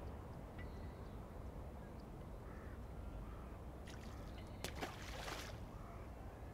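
Riverside morning ambience: a steady low rumble with a few soft, distant bird calls, likely crows cawing. About two-thirds of the way in come a couple of sharp clicks and a short burst of rustling or splashing.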